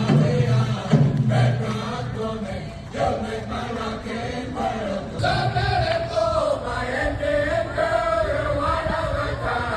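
A group of voices singing a chant together, with long, held, wavering notes.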